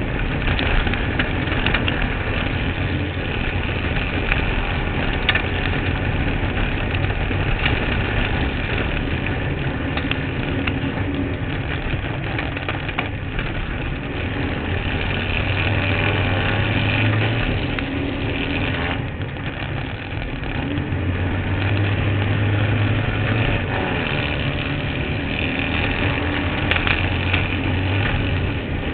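Kart cross buggy's engine running hard, heard through an onboard camera, with the revs rising and falling as it races. Its pitch holds steady for a couple of seconds twice, and the level dips briefly about two-thirds of the way through.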